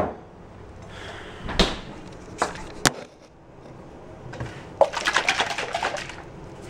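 Knocks and clicks of a bottle and a small glass being handled on a kitchen counter, then liquid supplement glugging as it is poured into a shot-sized measuring glass for about a second, near the end.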